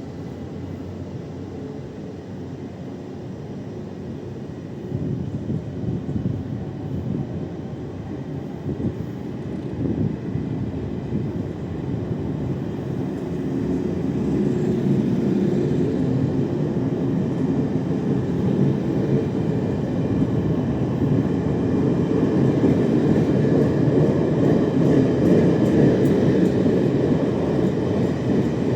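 Taiwan Railway E1000 push-pull electric train pulling away, its Alstom GTO-VVVF traction equipment and cooling blowers running over wheel and rail rumble, growing louder from about halfway through.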